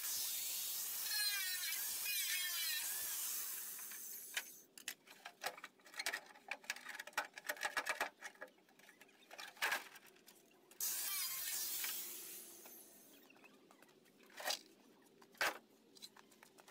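Angle grinder cutting a sheet-metal car panel: a loud high-pitched whine and hiss that winds down about four seconds in. Then clatter and sharp metal knocks as the cut panel is handled, with a second short burst of hiss about eleven seconds in.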